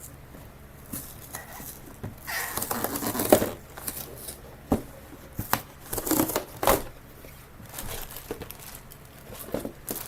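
A LEGO set's cardboard box being opened and its plastic parts bags handled: crinkling and tearing in irregular bursts, with a few sharp clicks.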